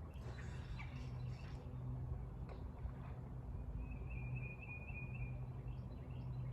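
A bird gives one quavering, trilled call lasting a second or so, midway through. Under it runs a steady low hum, and there are a few light clicks near the start.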